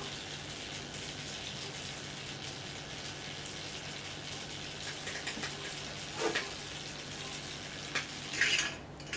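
High-voltage arcing across a plasma TV panel fed about 2,000 volts from a microwave oven transformer: a steady sizzling crackle over a low transformer hum, with sharper snaps about six seconds in and a louder burst of crackling near the end, after which the sizzle cuts off as the power is switched off.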